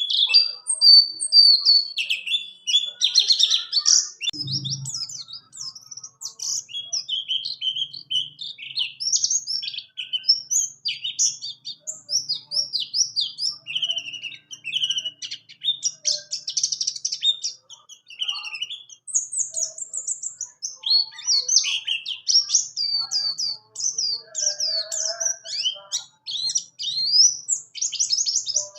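A white-eye of the buxtoni type (pleci buxtoni) singing a long, unbroken run of rapid high chirps and twitters, the rolling "ngerol" song used as a tutor song for other birds. A brief low thump about four and a half seconds in.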